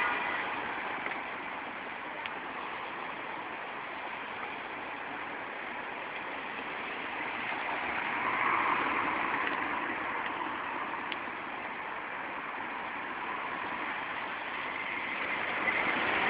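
City street traffic heard through a phone microphone: a steady wash of car noise that swells about eight seconds in and rises again near the end as a car drives up.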